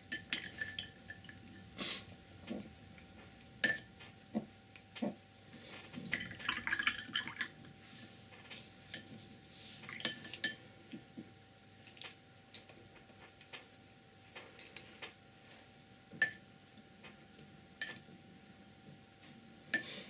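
Quiet, scattered clinks and taps of painting tools being handled: a paintbrush knocking against jars and the palette, with a short rustling, swishing stretch about six seconds in.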